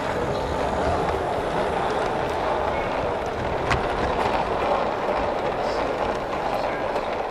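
Model train running on a model railway layout: a steady rumble of a locomotive and coaches rolling along the track, with one short tick about halfway through.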